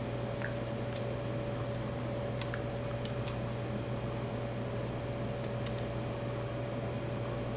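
A few scattered light clicks of mechanical keyboard switches being handled and fitted into a keyboard board, over a steady electrical hum.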